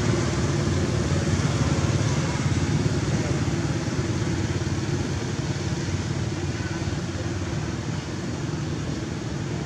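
A motorbike engine running steadily, slowly fading.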